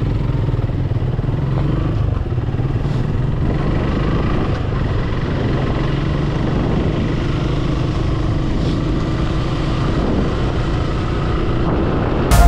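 Suzuki Gixxer 155 motorcycle engine running steadily under way, with wind noise on the microphone. Music starts suddenly at the very end.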